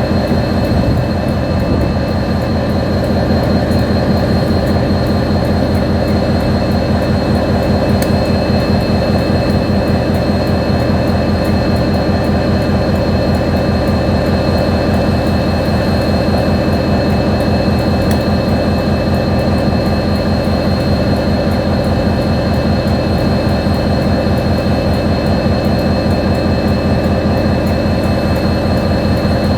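KiwiRail diesel locomotive engine running steadily, a constant low rumble with a high steady whine over it.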